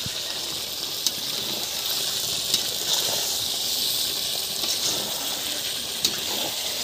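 Chicken curry sizzling and bubbling in a kadhai over a wood fire, a steady hiss, with a metal spatula stirring and clinking against the pan a few times.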